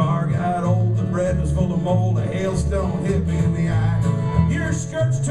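Live acoustic country-bluegrass band playing an instrumental break: fiddle, strummed acoustic guitars and bass.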